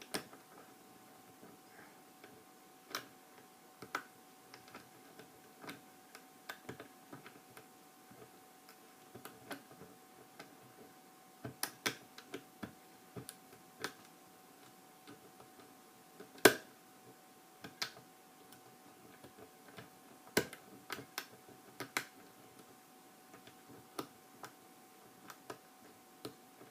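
Lock pick and tension wrench clicking inside a Squire five-pin tumbler padlock during single pin picking: irregular small metallic clicks as the pins are worked, the loudest about sixteen seconds in. A faint steady hum runs underneath.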